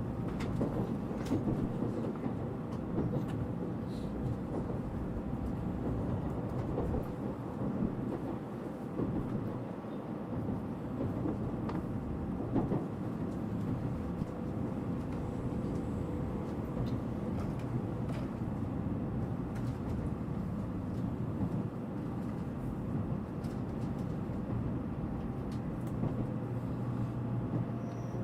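Steady rumble of a Tokaido Shinkansen Nozomi bullet train, with a few faint clicks. Near the end a steady low hum joins in.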